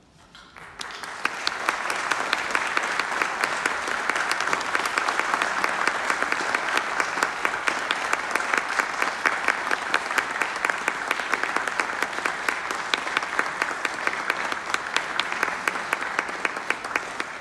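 Audience applauding: clapping swells up within about the first second and a half, holds steady and full, then begins to thin out near the end.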